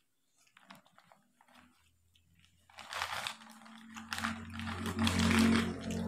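Small mouth and hand sounds of eating rice by hand, then, from about three seconds in, loud crinkling and rustling of the paper nasi padang wrapping being handled. Background music comes in underneath and grows louder toward the end.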